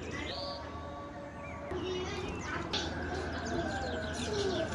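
Soft background music mixed with birds chirping and a dove cooing, over a steady low hum.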